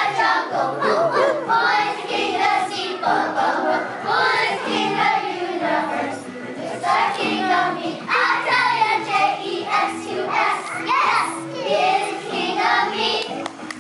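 A group of young children singing together, with musical accompaniment underneath.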